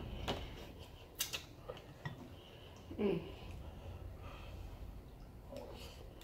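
Eating sounds of seafood gumbo: chewing, with a few sharp clicks of a spoon against the bowl in the first couple of seconds and a short falling vocal 'mm' about three seconds in.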